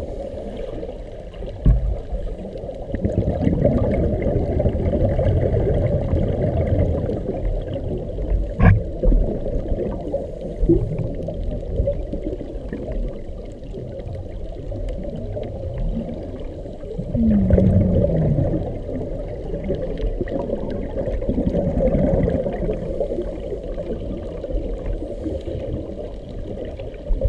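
Underwater sound heard through a camera's waterproof housing: a muffled rushing and gurgling of divers' exhaled air bubbles from their regulators, swelling and easing every few seconds. A couple of sharp knocks, one about two seconds in and one near nine seconds, and a short falling low tone around seventeen seconds.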